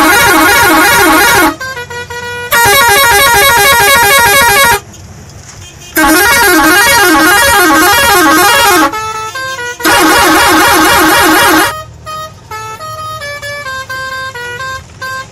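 Truck horn sounding four long, loud blasts of several tones at once, the pitch wavering in a warble, with short gaps between them; after the last blast a quieter string of changing tones follows, like a short tune.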